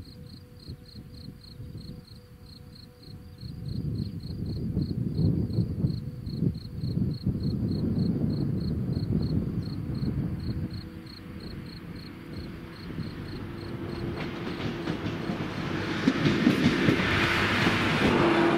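A level-crossing warning bell rings about twice a second while a single-car diesel railcar approaches, its engine hum and wheel rumble growing. The railcar passes over the crossing near the end, its wheels and engine loud and close.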